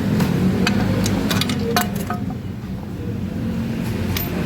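Scattered metal clinks and knocks, most in the first two seconds and one more near the end, as a scooter's swing arm is worked loose, over a steady low hum.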